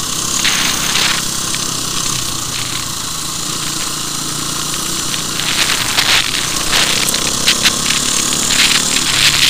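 Dirt bike engine running at low speed along a gravel track, under heavy wind and road noise on the camera mounted on the rider. From about halfway in, scattered sharp crackles join the noise.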